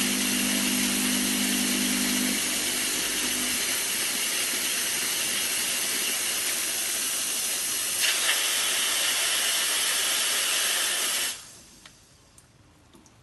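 WeGa espresso machine's steam wand hissing steadily, its tone brightening about 8 seconds in, then cut off suddenly near the end. A low hum underneath stops about three seconds in.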